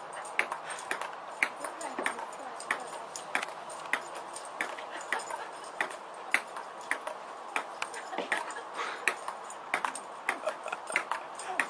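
A quick, slightly irregular series of sharp light clicks or taps, about two to three a second, over a steady background hiss.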